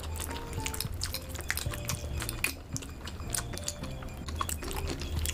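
Close-miked wet eating sounds: many small sticky clicks and smacks of chewing saucy food, with light fork and glass-bowl clinks, over soft background music with a low bass.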